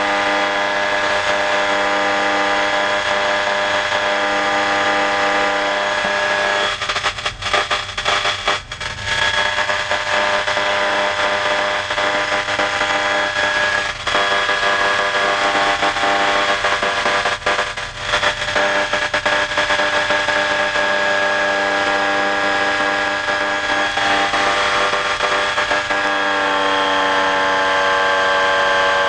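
Titan Tornado II ultralight's engine and propeller droning steadily in cruise flight, heard from inside the open cockpit. There are brief crackles about a third of the way in and again past the middle, and the engine note drops slightly near the end.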